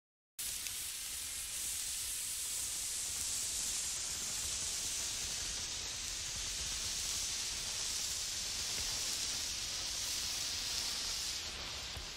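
Road and wind noise inside a moving vehicle's cabin: an even, steady hiss over a faint low rumble. It starts abruptly just after the opening and eases slightly near the end.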